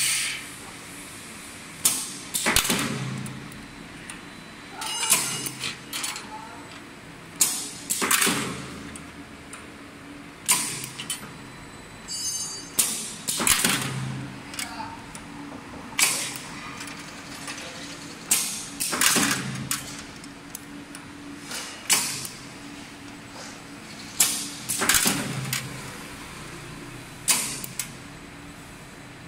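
An automatic TIG stir rod welder working through repeated weld cycles on stainless steel stir rods, about every two to three seconds. Each cycle is a sharp clack followed by a second or so of hissing, crackling noise that fades away.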